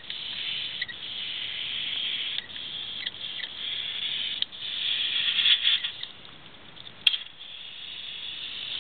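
Airbrush spraying weathering paint in short bursts: a hiss of air and atomised paint that cuts off briefly and starts again several times, strongest a little past the middle and weaker near the end. A sharp click comes about seven seconds in.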